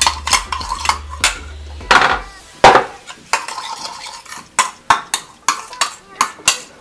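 A spoon stirring a vinegar-and-oil dressing in a small bowl with quick clinks against its sides. This is followed by a few louder knocks about two to three seconds in as a dish is moved, then more spoon clinks against the bowl as the dressing is tipped out over the salad.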